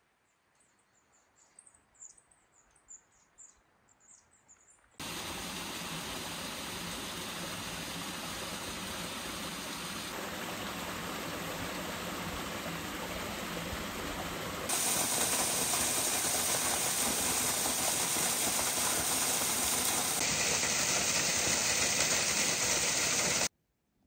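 Faint high bird chirps, then from about five seconds in a steady rush of running water. It gets louder in steps and cuts off abruptly near the end.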